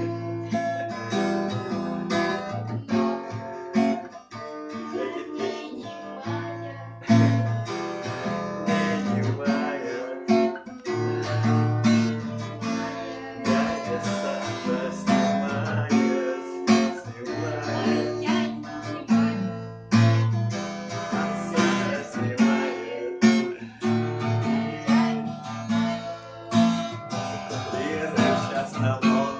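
Acoustic guitar strumming a steady rhythmic accompaniment.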